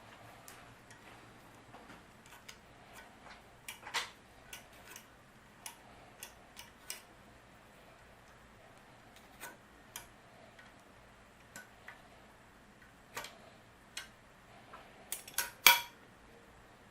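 Scattered sharp metal clicks and clinks of hand tools and engine parts being handled, irregular and a second or so apart, with a louder burst of clanks near the end.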